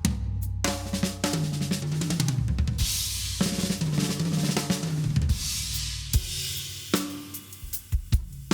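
Acoustic drum kit being played: kick, snare and toms under a sustained wash of crashing cymbals, with a steady hi-hat beat at the start and end.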